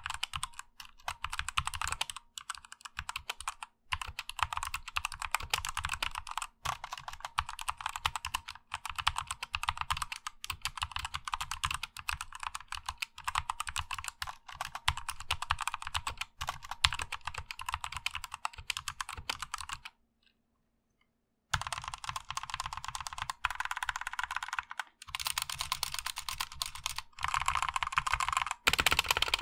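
Typing on a CXTech X-61 60% hot-swap keyboard with its stock, unmodified black Outemu linear switches: a fast, steady run of keystroke clacks. About two-thirds of the way through it cuts to silence for a second or so, then resumes as the stock modifier keys are pressed.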